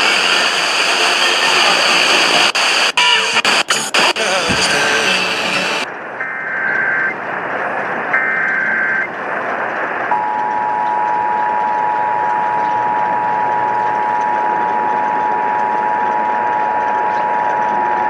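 Radio reception static with crackles and dropouts. Then the start of an Emergency Alert System relay: two short warbling SAME header data bursts, followed by the steady two-tone EAS attention signal held for about eight seconds over a hiss. This is the signal that heads a broadcast flash flood warning.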